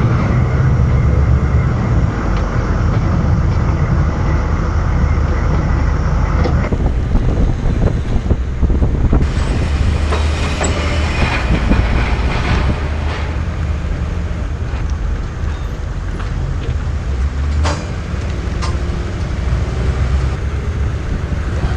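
Humvee on the move: a steady low rumble from the diesel engine and drivetrain, with road noise and a few sharp knocks and rattles.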